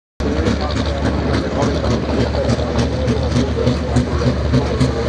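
Heavy diesel engine of a pulling tractor running steadily at a low speed, a deep drone with a regular throb of about three pulses a second, not revving up. It cuts in abruptly a fraction of a second in.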